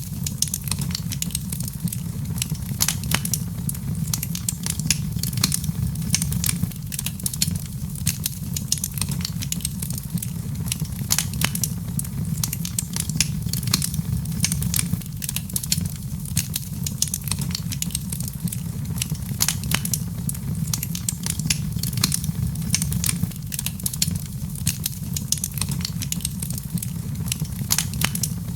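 Wood fire burning in a fireplace: a steady low rumble of flame with frequent irregular sharp crackles and pops.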